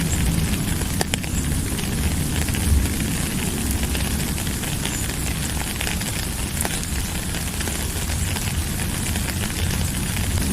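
Steady rainfall: an even hiss with scattered sharp drop ticks and a deep rumble underneath.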